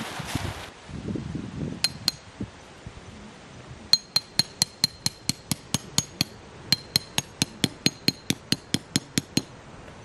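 Tent peg being hammered into the ground: a quick run of sharp, ringing strikes, about four or five a second, starting about four seconds in and breaking off briefly in the middle. Two single strikes come first, about two seconds in, and tent fabric rustles at the very start.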